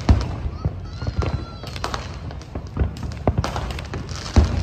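Fireworks going off: a run of irregular sharp bangs and pops, with a short whistle about a second in.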